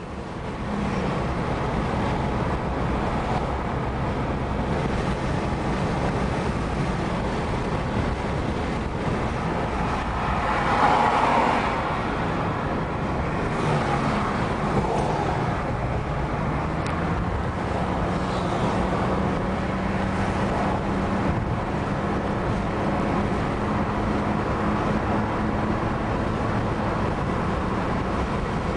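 Car driving on a highway, heard from inside the cabin: steady tyre and engine hum, swelling briefly about eleven seconds in.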